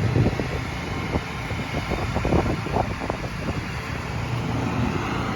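Pressure washer running steadily while its water spray rinses a concrete sidewalk, with an irregular spatter of water striking the pavement.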